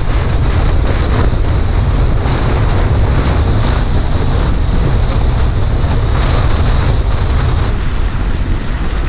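Bass boat running at speed over choppy water: heavy wind buffeting on the microphone over the rush of the hull through the waves and the outboard motor. The higher hiss drops away near the end as the boat comes off plane near the docks.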